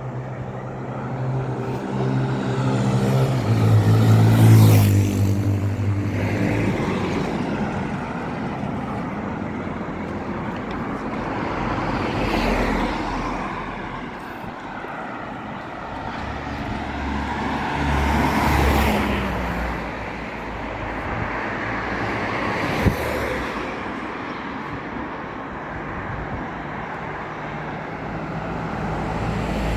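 Road traffic: several motor vehicles passing close by one after another, each swelling and fading. The loudest pass, about four seconds in, carries a clear engine hum.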